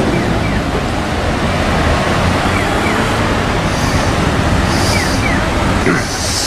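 Street traffic at a busy intersection: car and diesel bus engines running with tyre noise as a Hino K-RC301P route bus pulls through. Short hisses of air come in the second half, and faint paired electronic chirps repeat about every two seconds, as from a pedestrian crossing signal.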